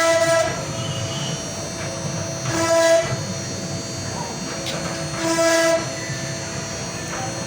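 CNC router spindle whining as it mills wood, a steady high-pitched tone with cutting hiss that swells louder twice as the bit moves through the cut.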